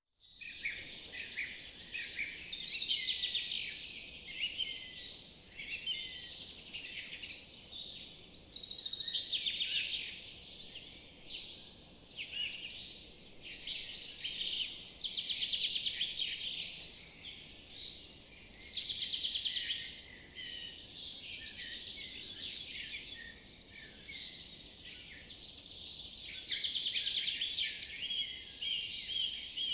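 Several birds chirping and singing together, with bursts of rapid repeated trilling notes every few seconds.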